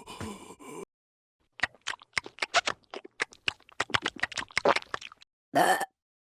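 Cartoon sound effects: a rapid, irregular run of short sharp clicks and pops lasting a few seconds, followed by one short separate burst near the end.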